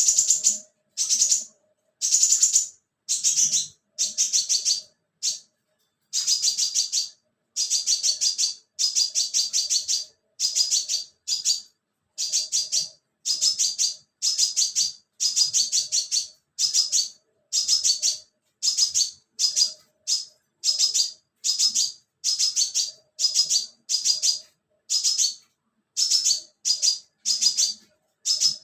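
Scarlet minivet calling insistently: short bursts of rapid, high-pitched chirping notes repeated about once a second without a break.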